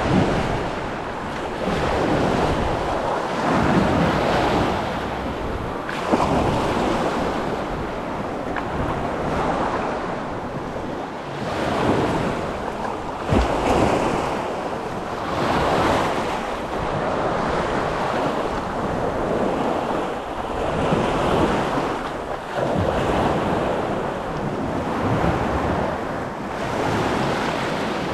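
Sea waves washing onto a sandy beach, swelling and fading every few seconds, with wind buffeting the microphone and a brief gust thump about halfway through.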